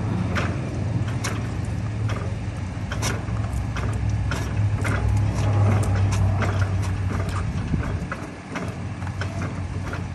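Scattered metal clicks and knocks as a stuck old tractor engine is levered over by hand with a long steel bar. Under them runs a steady low drone that drops away about eight seconds in.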